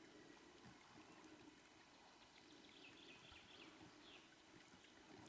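Near silence: faint outdoor background with a little water noise.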